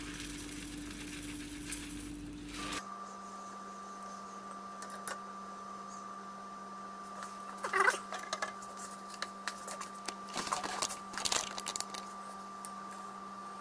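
Polymorph thermoplastic pellets poured into a small steel mug of just-boiled water, then a fork ticking and scraping against the mug as the softening pellets are stirred and lifted out. The light clicks come in a cluster near 8 s and again near the end, over a faint steady hum.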